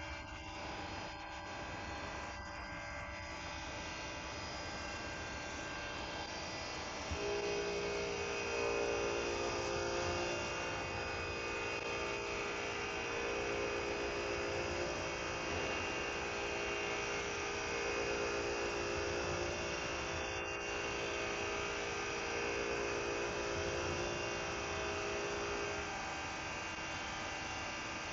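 CNC turn-mill lathe running with a steady machine hum and whine. A louder motor whine comes in about seven seconds in, holds with a slight wavering, and stops near the end.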